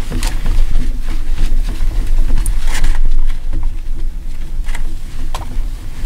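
Cloth wiping marker off a glass lightboard: a run of short rubbing strokes over a loud, steady low rumble.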